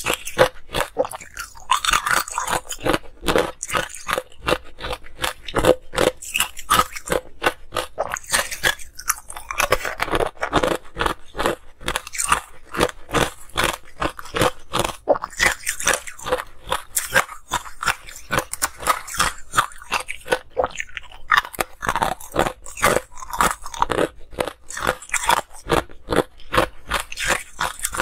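Ice cubes crunched and chewed close to a lapel microphone: a dense run of sharp, brittle crunches, several a second.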